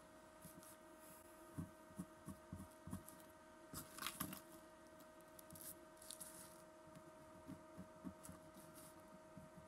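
Faint light taps and a brief scratch about four seconds in, from a pencil marking the lip-slot angle on a hand-carved pine lure body, over a steady electrical hum.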